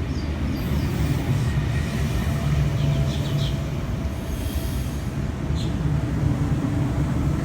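Electric passenger train running at a station platform: a steady low rumble and hum, with a few short high squeaks about three seconds in and again near the end.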